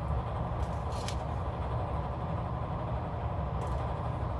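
Steady low background rumble, like a fan or room air handling, with a few faint brief ticks about a second in and near the end.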